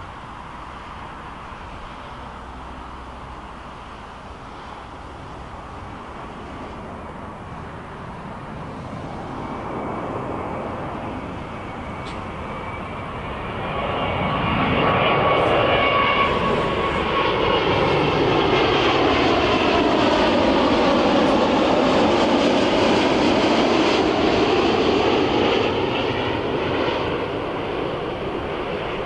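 Boeing 787-8 jet airliner on landing approach passing low overhead: the noise of its twin turbofan engines grows from faint to loud about halfway through, with tones that slide in pitch as it passes, then eases a little near the end.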